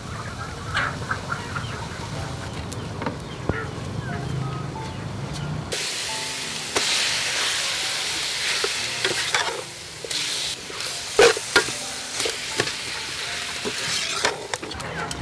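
Sliced beef frying in a pot of spice paste, stirred with a metal ladle. A low hum with a few light knocks gives way about six seconds in to a steady sizzle, with a couple of sharp knocks of the ladle against the pot a few seconds later.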